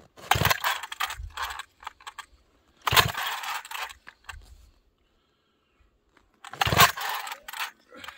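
Three pulls on the recoil starter of a cold-soaked McCulloch Super Pro 70 chainsaw on full choke, the rope rasping out and the engine turning over against its compression without firing. It is a cold start at about −25 °F, where the McCulloch recoil struggles.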